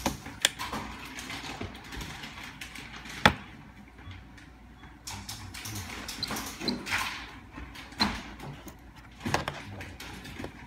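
Scattered clicks and knocks of hands pressing the plastic keys of a remote-code duplicator and handling a car-key-style gate remote against it; one sharp knock about three seconds in is the loudest. A few short high beeps are heard in the second half.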